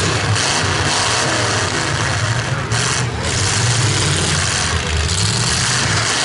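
Engines of several demolition derby pickup trucks running loud and revving as they drive around the arena, with a steady deep rumble under a wide rushing noise.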